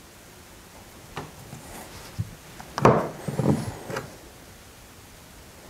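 Soft wooden creaks and rubbing, a few short ones and a louder cluster about three seconds in.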